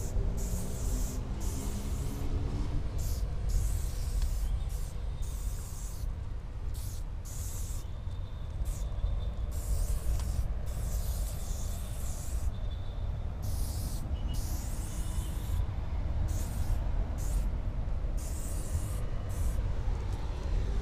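Aerosol spray-paint can spraying black paint in a long series of short hissing bursts, roughly one a second, some cut short and some held for about a second, over a steady low rumble.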